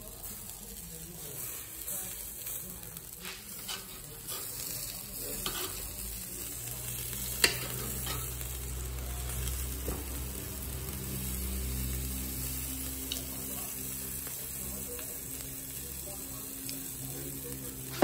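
Boerewors sausage sizzling over glowing charcoal on a small kettle grill, with sharp metal clicks of tongs on the grate as the coil is turned, the loudest about seven seconds in. A low steady hum joins about six seconds in.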